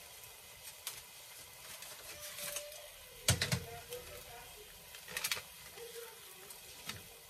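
Scissors snipping open a paper packet of taco seasoning, with the packet crinkling: a handful of short, sharp clicks, the loudest about three seconds in.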